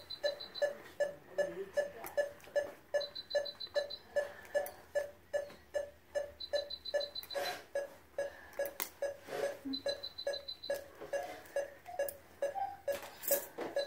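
Anaesthesia monitor beeping steadily, about two and a half beeps a second: the pulse tone that follows the anaesthetised dog's heartbeat. A quicker run of higher beeps comes about every three seconds, and now and then there is a short rustle or clink.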